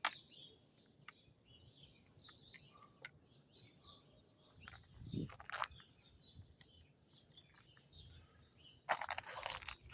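Faint, scattered bird chirps over quiet outdoor ambience, with a few sharp ticks, and a short burst of scraping noise near the end.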